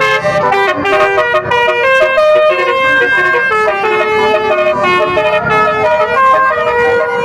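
Basuri telolet horn, a multi-tone musical air horn, playing a tune of held notes that step from one pitch to the next, several notes sounding together.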